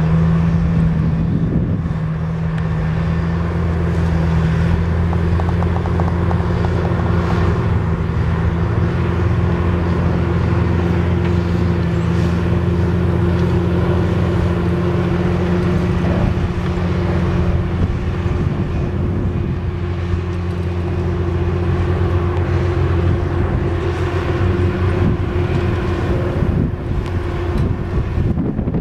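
Komatsu D61PX crawler dozer's six-cylinder diesel engine running steadily under load as the machine works a topsoil heap, a low steady drone. Its note changes a little about two thirds of the way through.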